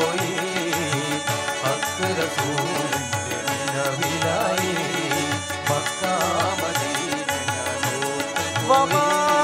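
Instrumental passage of a live Mappila song: tabla rhythm under keyboard and acoustic guitar. Near the end a louder held, wavering melody line comes in.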